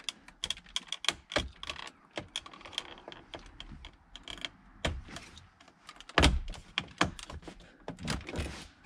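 Plastic trim tool and ProClip dash mount working against plastic dash trim as the mount is pried and clipped in: a rapid run of small plastic clicks and taps, with heavier knocks about a second and a half in and, loudest, about six seconds in.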